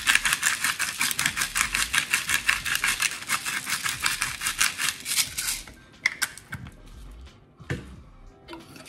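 Pepper grinder being twisted, a fast, even ratcheting grind of about seven clicks a second that stops about five and a half seconds in. A few soft clicks and a light knock follow near the end.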